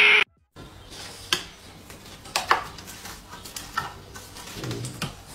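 A cat hissing loudly, cut off abruptly a moment in; then only a few faint scattered clicks and knocks.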